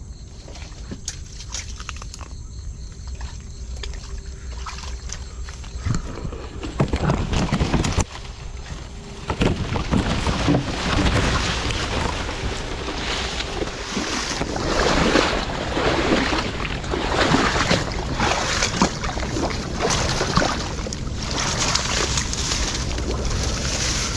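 Rustling of grass and leaves with water sloshing, as someone pushes through wet, marshy vegetation. It is fairly quiet for the first few seconds, has a few knocks around six to eight seconds in, and from about ten seconds on the rustling and sloshing is steady and louder.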